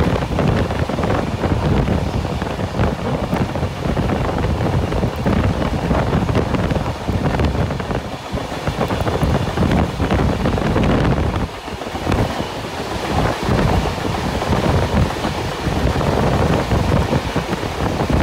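Heavy wind buffeting a microphone held out of a moving train's window, over the steady low rumble of the train running along the track. The loudness keeps fluttering, with a brief dip about eleven and a half seconds in.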